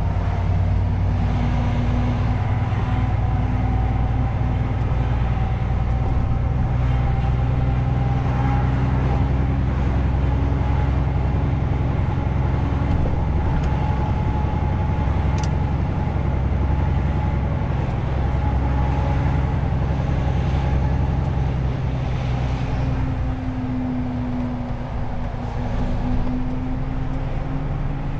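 Truck's diesel engine running steadily under way, heard from inside the cab with road noise; about two-thirds of the way through the engine note drops lower.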